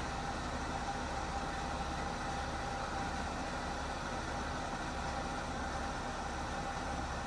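Sewage suction truck running steadily while a thick jet of water gushes from its rear tank outlet and splashes onto wet pavement as the tank is emptied. The engine hum and the rush of water stay even, with no change.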